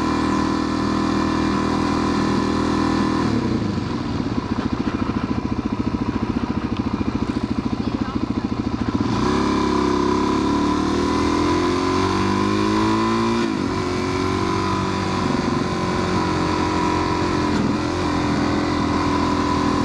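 Motorcycle engine running under way. It settles into a low, fast-pulsing note from about three to nine seconds in, then climbs in pitch for several seconds, drops abruptly and runs steadily on.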